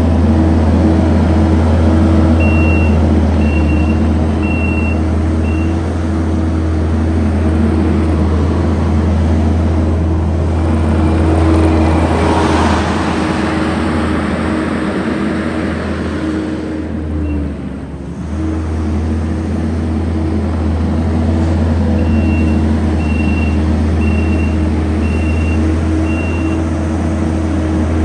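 Kubota SVL75-2 compact track loader's diesel engine running steadily as the machine works. Its backup alarm beeps about once a second near the start and again near the end while it reverses. A broad rush of noise swells about halfway through, and the engine dips briefly soon after.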